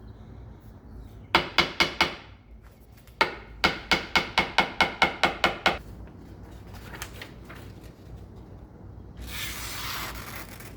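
Two quick runs of sharp knocks, about five a second, each with a short ring: a short run of five, then a longer run of about a dozen. A brief rustling hiss follows near the end.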